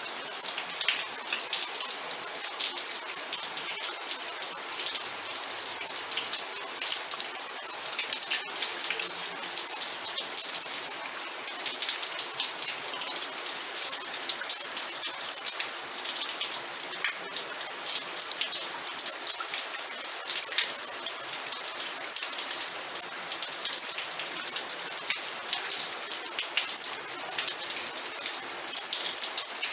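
Steady rain falling, a continuous hiss dotted with many separate drop ticks.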